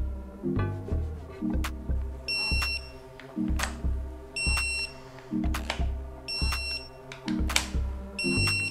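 Background electronic music with a steady bass beat and a high beeping note that repeats about every two seconds.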